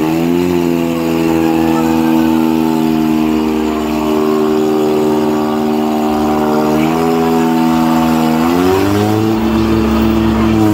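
Mahindra 585 tractor's diesel engine revving up and held at high, steady revs under throttle. It dips briefly, then climbs a step higher near the end.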